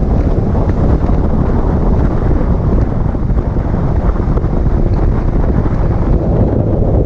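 Steady wind rushing over the microphone of a cage-mounted camera on a moving side-by-side UTV, with the vehicle's running noise underneath.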